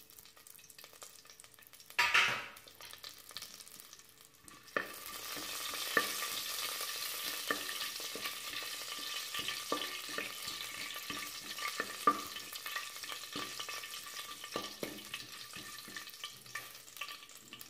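Whole spices (fennel seed, cinnamon, cloves, cardamom, cumin, black peppercorns) sizzling in hot oil in a pressure cooker, stirred with a wooden spatula that scrapes and taps the pan bottom. A short burst of sizzling comes about two seconds in, and a steady frying sizzle with scattered clicks starts about five seconds in.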